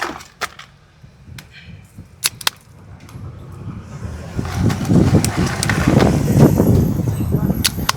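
A motor vehicle passing close by on a street, its rumble swelling from about four seconds in and peaking near the end, after a few sharp clicks.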